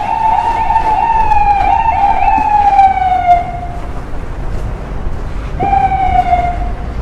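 Emergency vehicle siren wailing, its pitch slowly falling. It breaks off after about three and a half seconds and sounds again for about a second and a half near the end, over steady street traffic noise.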